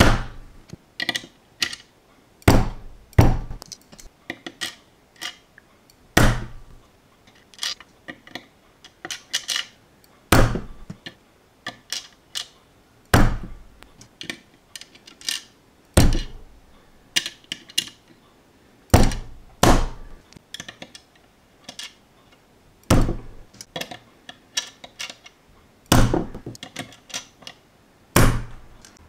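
Metal tweezers clicking and tapping on plastic LEGO bricks as pieces are picked up and pressed onto the model. A run of irregular sharp clicks, with louder thuds every few seconds.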